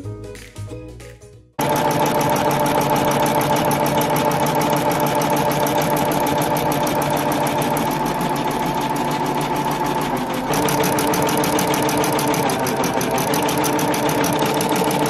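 Background music for about the first second and a half, then cut suddenly to a Brother Skitch PP1 embroidery machine stitching a design into denim at speed: a steady run of rapid needle strokes over the motor's hum, with a small change in level about ten seconds in.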